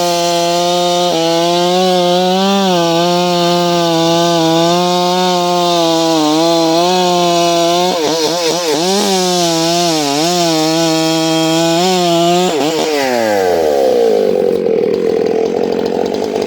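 Stihl MS 661 two-stroke chainsaw cutting through dry wood at full throttle with a steady high engine note. About eight seconds in, the revs dip and recover several times as the chain bogs in the cut. Near the end of the cut, about three-quarters of the way through, the throttle is released and the engine winds down to idle.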